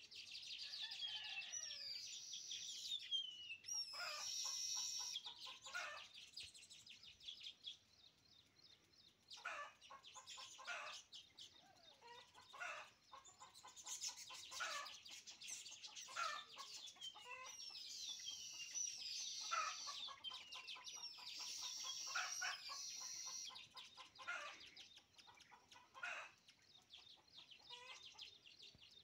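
Baya weavers calling at their nests: buzzy chattering notes and high wheezy, gliding whistles, in bouts several seconds long.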